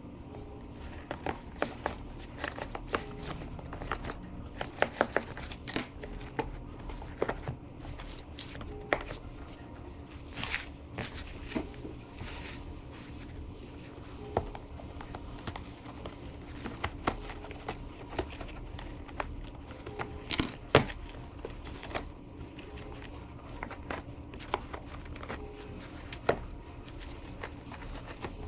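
Motorcycle seat foam being pulled apart by hand: irregular small crackles and tearing noises as grid-cut pieces are ripped out, with a few sharper snaps.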